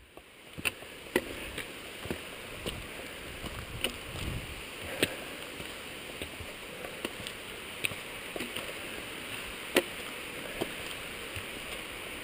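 Footfalls of a hiker climbing a rocky trail: irregular sharp clicks and knocks, about one or two a second, over a steady hiss.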